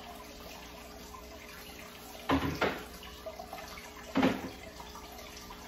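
Plates being set down on a dining table: a double clunk a little over two seconds in and a single clunk about two seconds later.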